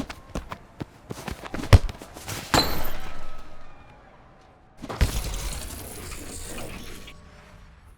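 Soccer foley sound effects: quick footsteps and ball touches, then a hard kick. A noisy rushing burst follows and fades, then a second hard impact about halfway through with a noisy wash that cuts off suddenly.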